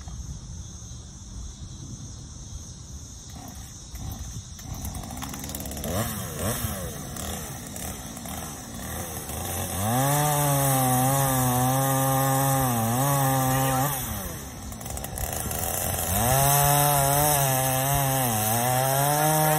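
Chainsaw engine revving briefly, then running at full throttle for about four seconds, easing off, and running hard again for about four seconds more near the end.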